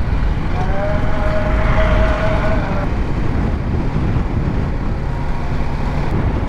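BMW G310GS single-cylinder motorcycle riding slowly over cobblestones, its engine and the road noise making a steady low rumble. About a second in, a steady higher tone sounds for about two seconds.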